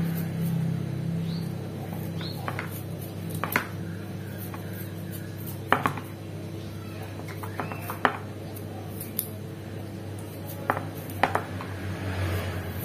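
Kitchen knife scraping and clicking as small spice pieces are peeled by hand, with a few scattered sharp clicks of the blade over a steady low hum.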